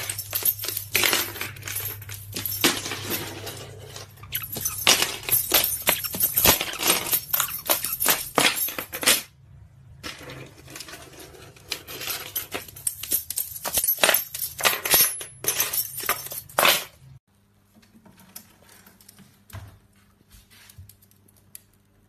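Caique at play, setting off fast, irregular clinking and clattering of small hard objects, like coins or keys rattling. It comes in two long stretches with a short break between them and gives way to a few faint taps about three quarters of the way in.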